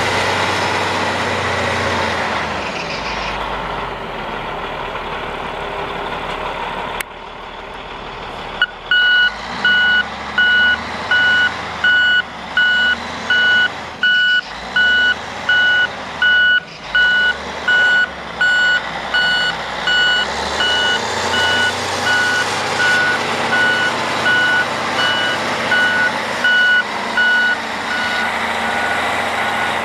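1985 CAT 980C wheel loader's diesel engine running, then from about eight seconds in its reverse alarm beeps steadily, about one beep a second, over the engine as the loader backs up.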